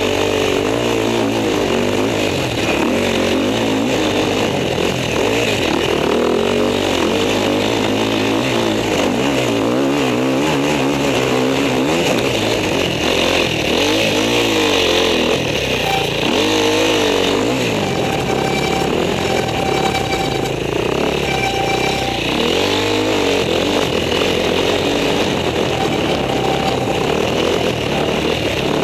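Husqvarna enduro motorcycle engine, heard close up from the rider's helmet camera, revving up and down constantly as it is throttled and shifted along the trail.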